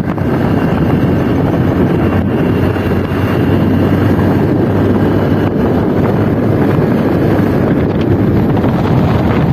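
Wind rushing loudly over the microphone of a motorcycle riding at speed, with a low steady hum from the bike underneath.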